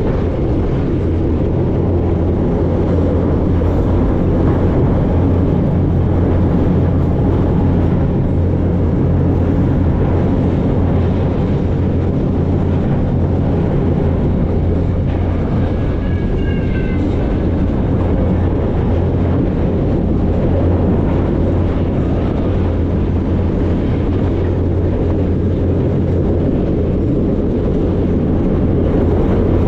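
Freight train rolling along, heard from aboard one of its cars: a loud, steady rumble of wheels and car body. About halfway through there is a brief, faint high squeal.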